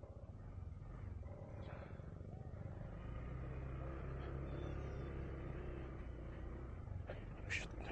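Honda ADV 160 scooter's single-cylinder engine running low and steady as it moves off at walking pace, its hum growing a little fuller about three seconds in. A brief sharp sound comes near the end.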